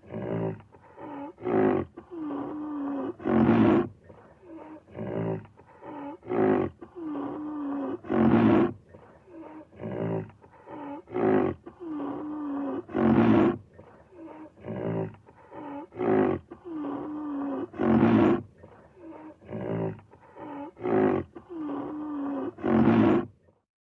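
Rhinoceros vocalising: short, loud, harsh grunts alternating with longer growling calls of wavering pitch. The same sequence of calls repeats about every five seconds.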